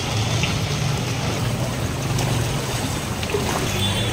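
Floodwater swishing and splashing around people's legs as they wade through a flooded street, over a steady low hum.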